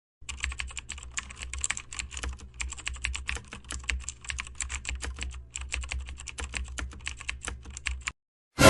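Computer keyboard typing: rapid, irregular keystrokes with a short pause about two-thirds of the way through.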